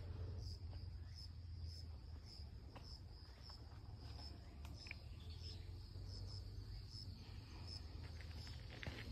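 Insects chirping in a steady high-pitched trill that swells in regular pulses about twice a second. A low rumble and a few faint ticks run beneath it.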